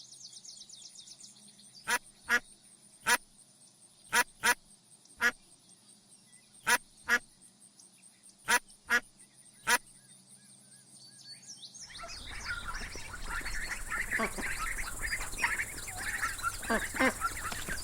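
Bird calls: about ten short, loud calls at uneven intervals, then from about twelve seconds in a dense, continuous chatter of many overlapping calls.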